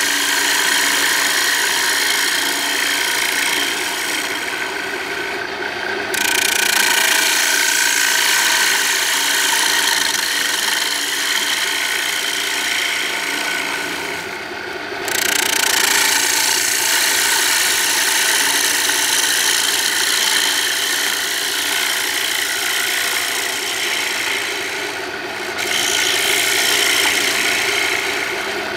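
A gouge cutting the face of a spinning walnut plate on a wood lathe: a continuous scraping hiss of the cut, with the lathe running underneath. The cut eases off briefly three times, about four, fourteen and twenty-five seconds in.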